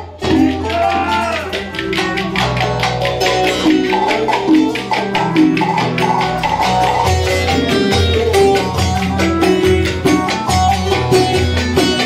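Lively Ankara havası folk dance music: a plucked string melody over a fast, even percussion beat. The dancers' wooden spoons clack in time with it.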